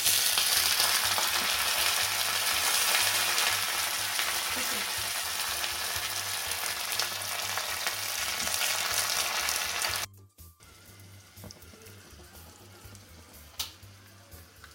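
Curry leaves, mustard seeds and chilies sizzling and spluttering in hot coconut oil as a tempering. The sizzle is loud and steady, then cuts off abruptly about ten seconds in, leaving only a faint hiss and a single click.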